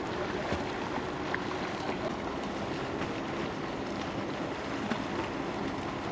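Boat under way on open water: a steady rush of wind and water with a faint low hum.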